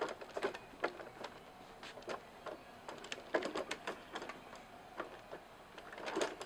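Hard plastic wheels of a toddler's push-along ride-on toy car rolling over wooden deck boards: scattered clicks and knocks at irregular times.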